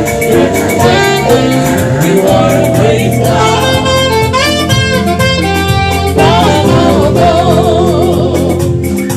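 Gospel band music: a saxophone carries the melody, with a wavering held note partway through, over a steady bass line and drums.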